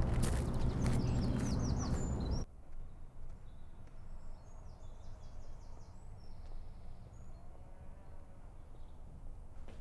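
Outdoor ambience of birds chirping over a low rumble, which cuts off abruptly about two and a half seconds in. What follows is a much quieter, steady room tone, with faint birdsong still heard through the glass.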